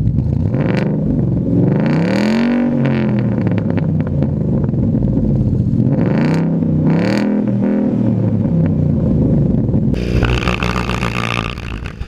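Ford Mustang 5.0 V8 idling, recorded right at its exhaust tip and revved several times. There is a short blip about a second in, a longer rev that rises and falls around two seconds in, and two quick blips around six and seven seconds in. Near the end a harsher, noisier sound takes over for a second or two.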